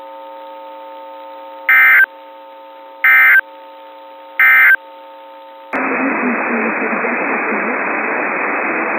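NOAA Weather Radio SAME end-of-message tones: three short, loud, screechy digital data bursts about a second and a half apart over a faint steady hum, closing the weekly test alert. At about 5.7 s the sound cuts abruptly to steady radio static hiss.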